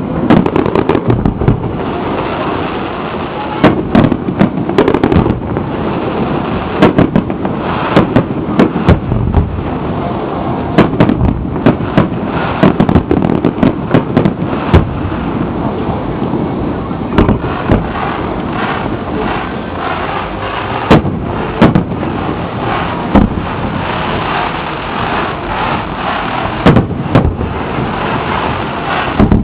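Fireworks display: aerial shells bursting in an irregular run of loud bangs, some in quick clusters, over a steady background rumble.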